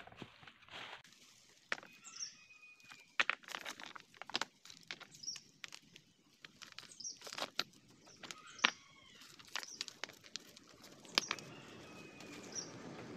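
Irregular sharp snaps and crackles of dry twigs, leaf litter and stones being handled at the base of a shrub, with a bird chirping now and then in the background.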